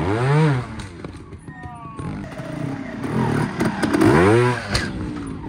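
Trials motorcycle engine blipped in short rev bursts that rise and fall in pitch: one at the start and a longer one about four seconds in, as the bike climbs a rock step. A few sharp knocks and scrapes of the bike on rock come in between.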